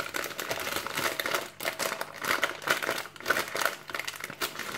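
Plastic biscuit packet crinkling and crackling as it is handled and opened.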